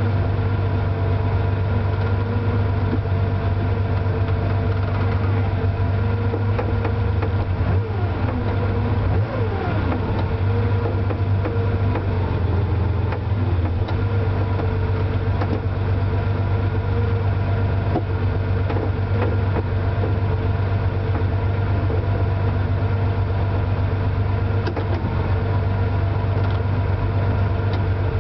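Porsche 911 SC's air-cooled flat-six idling steadily, heard from inside the cabin.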